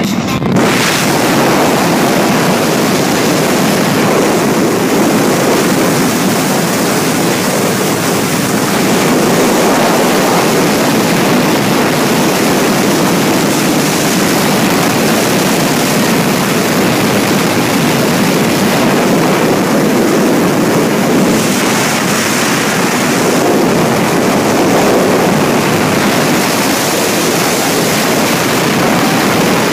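Wind buffeting the microphone of a phone held by a rider on a Harley-Davidson Tri Glide trike at road speed: a loud, steady rush of noise.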